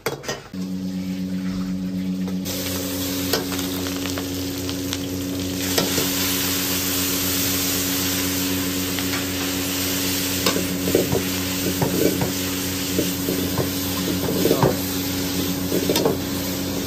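Blanched, still-wet greens hitting hot oil in a wok: a loud sizzle starts suddenly about half a second in and grows brighter a couple of seconds later, with a steady low hum under it. In the second half, a metal spatula scrapes and knocks against the wok as the greens are stir-fried.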